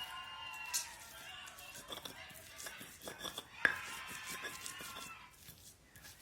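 Spices being ground by hand into a paste, heard as scattered clicks and knocks with a sharp one about halfway through, over soft background music.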